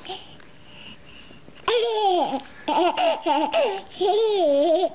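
A baby laughing, in three high-pitched bursts that start about a second and a half in.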